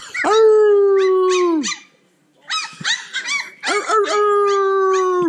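Litter of three-week-old Cane Corso puppies howling and yipping. There are two long held howls, each dropping in pitch as it trails off, with a quick run of short yips between them.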